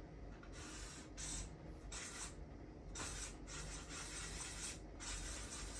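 Marker drawing on flip-chart paper: about six faint rubbing strokes, each under a second or so, as a box is drawn.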